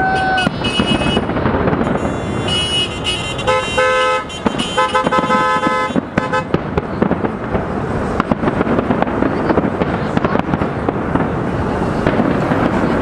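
Large fireworks display: a dense, continuous crackle of many shells and firecrackers bursting. About three and a half seconds in, horns honk in several steady blasts for a few seconds.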